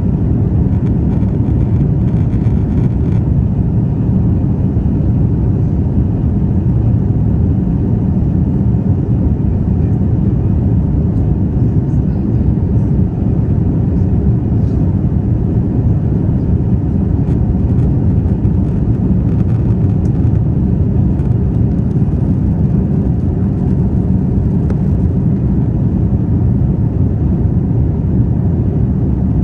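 Steady low rumble of an airliner's jet engines and rushing airflow heard inside the passenger cabin during the climb-out after takeoff.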